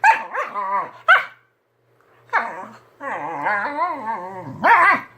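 A dog making wavering, whining growl-like vocal noises, its pitch sliding up and down: short calls in the first second or so, then a longer wobbling call from about three seconds in, ending in a sharper yip.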